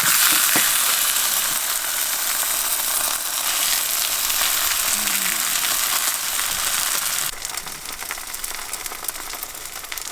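Food frying in a pan, a steady loud sizzle that drops to a quieter crackle about seven seconds in.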